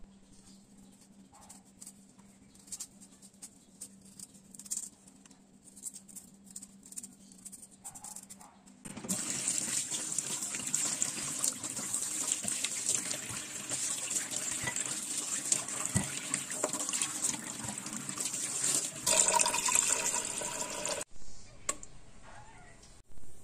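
Tap water running hard into a stainless steel sink while pork ribs are rinsed by hand, starting about nine seconds in after faint taps and clicks of handling on a cutting board. Near the end the water briefly takes on a louder, more ringing tone, then stops abruptly.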